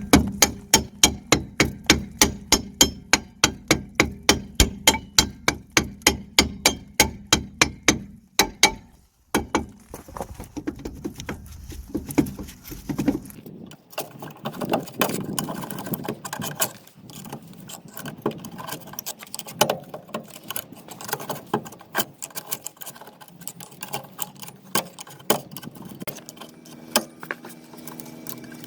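Hammer blows on a car's rear brake drum to knock it free of the hub, about three a second for the first eight seconds, then more scattered blows. After that come light, irregular metallic clinks and rattles, and a steady low hum starts near the end.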